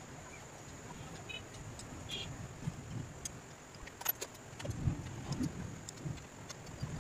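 Small steel parts clinking and jangling: loose bolts rattled in a box and a hex key knocking against the handlebar clamp, with a sharp metal click about four seconds in and a few dull knocks of handling.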